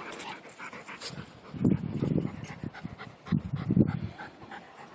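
Golden retrievers playing rough: two loud, low, rough bursts of dog noise about a second and a half apart, between stretches of softer panting.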